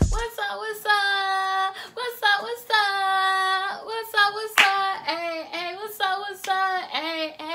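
A woman singing unaccompanied in a high voice, holding some long notes, with short sharp claps or slaps between phrases.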